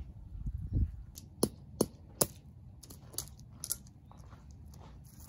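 A few sharp clicks and knocks of hard objects, three loudest close together about a second and a half in, then fainter ones, over a low rumble of handling noise.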